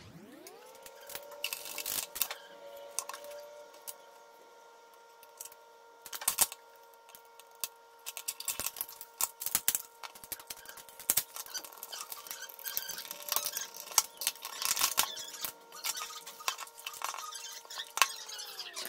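Irregular clicks, taps and clatter of a Proskit MT-2207 analog multimeter's plastic case and tools being handled and fitted back together. A steady humming tone with overtones runs under it, sliding up in pitch at the start and back down at the end.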